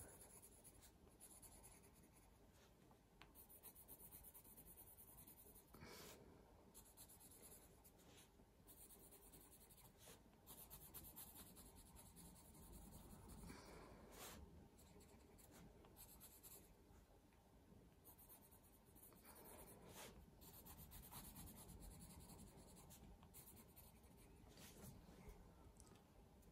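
Faint scratching of a coloured pencil shading on drawing paper with light pressure, in uneven strokes that swell and fade.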